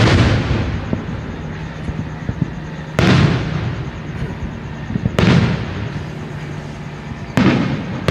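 Aerial fireworks shells bursting about four times, spaced roughly two to three seconds apart. Each burst starts with a sudden bang and rumbles away over about a second.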